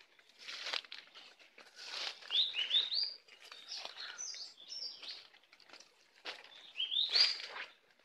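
A small bird calling with short rising chirps: a quick run of three about two seconds in, a few more a couple of seconds later, and another run near the end. Between them, footsteps rustle through dry bamboo leaf litter.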